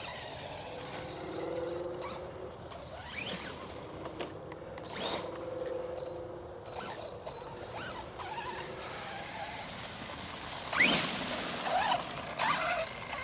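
Arrma Big Rock BLX RC truck's brushless motor and steel spur gear whining at low speed, with short rising revs. A louder burst of throttle comes about eleven seconds in, and two smaller ones follow near the end.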